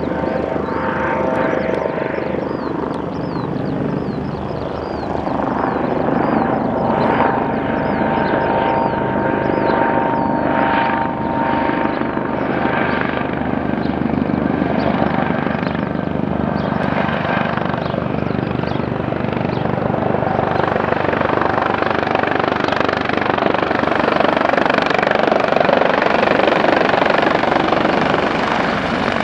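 Airbus AS365 N3 Dauphin helicopter coming in to land: its twin turbine engines, main rotor and Fenestron tail rotor run with a steady rapid rotor beat and a turbine whine. It grows gradually louder as it approaches.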